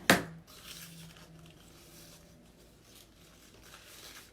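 One sharp knock right at the start, then faint rustling and small handling noises as materials are moved about on a work table.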